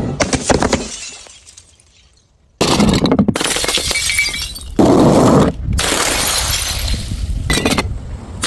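Glass bottles smashing and shattering, several separate crashes with scattering shards, each starting abruptly after the first one fades out.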